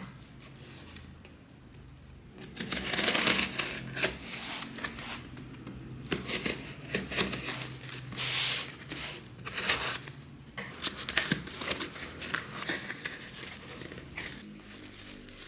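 Paper or packaging being handled: irregular crinkling and rustling, with small taps, loudest about three seconds in and again past the middle.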